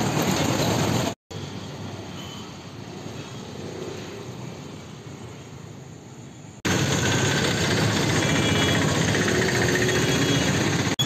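Steady rushing noise of a river in flood, mixed with traffic rumble on the bridge. It cuts out for an instant about a second in, stays quieter for several seconds, then jumps back louder about six and a half seconds in.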